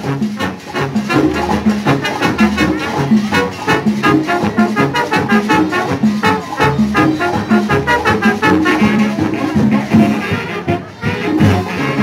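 A marching band playing live: trumpets and trombones carrying the tune over a steady drum beat.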